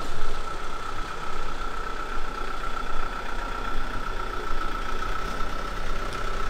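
A motorhome's engine running at low speed as the vehicle rolls in and idles, with a thin, steady high whine over it.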